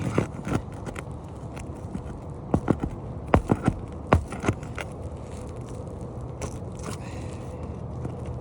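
Asphalt shingles being pried and worked loose on a roof: a run of sharp cracks and scraping knocks in two clusters, near the start and again from about two and a half to four and a half seconds in.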